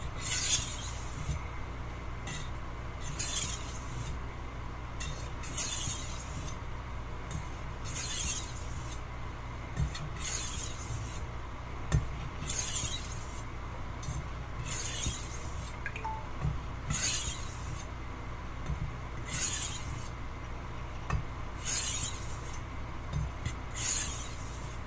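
Steel blade of a 10-inch Wusthof Classic chef's knife drawn across a water stone in slow, even sharpening strokes: a short, high-pitched scrape about every two and a half seconds, about eleven in all. The edge is being worked on one side until a burr forms.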